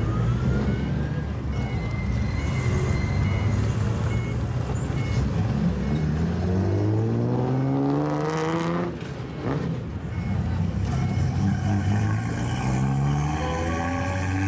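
Modified older Japanese cars with loud exhausts driving out one after another: a steady engine rumble, then from about halfway hard revving in repeated rising sweeps as a classic Datsun Fairlady Z pulls away, with more rising revs near the end.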